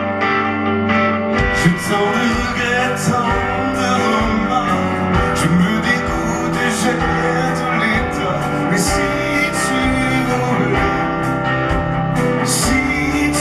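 Live band music with guitar, drums coming in about a second and a half in.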